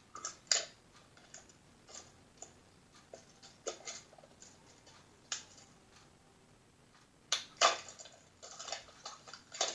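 Clear plastic wrapping crinkling and crackling as it is pulled off a DVD case: scattered sharp crackles, with a louder flurry of crinkling from about seven seconds in.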